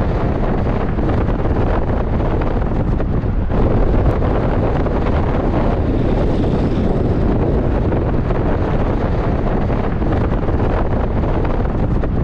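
Steady wind rush buffeting the microphone together with the road noise of a vehicle travelling at highway speed.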